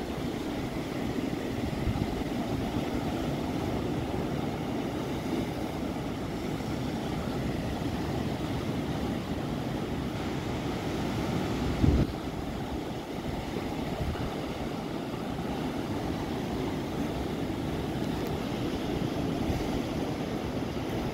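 Sea surf breaking and washing over rocks along the shore: a steady, loud rush of waves, with a brief thump about halfway through.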